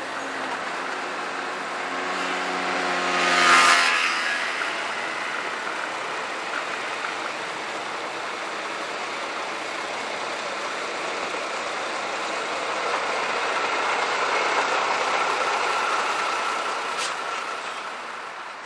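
Vintage Büssing diesel truck with a trailer passing close by, loudest about three and a half seconds in. Truck engine noise then goes on and swells again with a steady whine around fourteen to sixteen seconds in.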